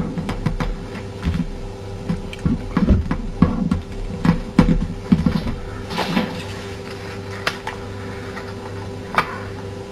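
A paper airplane's wing being folded and creased by hand: irregular crackles and taps of paper being bent and pressed flat, thinning out after about six seconds.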